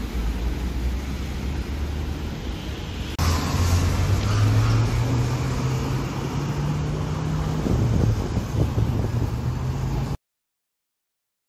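Low street rumble, then about three seconds in a Maserati coupé's V8 engine is heard pulling away, revving up and holding a steady note. The sound cuts off abruptly near the end.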